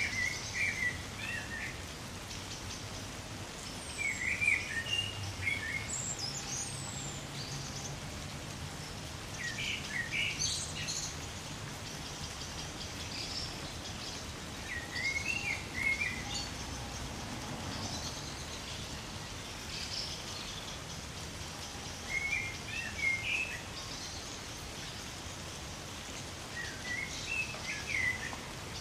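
Light rain falling steadily through trees, while a songbird sings short chirping phrases about every five or six seconds.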